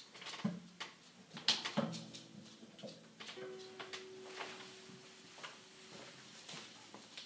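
Acoustic guitar handled and set down: two bumps against its body set the strings ringing briefly, then a faint steady tone lingers while light clicks, knocks and rustles come from the player getting up off a wooden chair.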